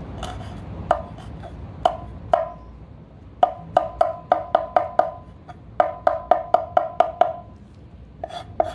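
A steel cleaver chopping lemongrass and lime leaves on a wooden cutting board. A few single chops, then two quick runs of about seven chops each, some four a second, each knock with a short metallic ring from the blade.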